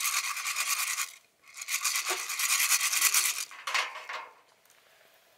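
Fast rasping, scraping strokes in two runs, one of about a second and one of about two seconds, with a short burst near four seconds in.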